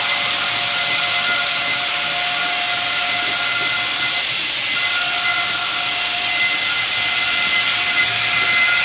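Model trains running on a layout: a steady rush of wheels over the track, with a thin electric motor whine that drops out for a moment about four seconds in, then returns.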